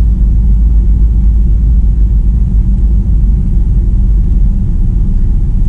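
Steady low rumble of a semi-truck's idling diesel engine, heard from inside the sleeper cab.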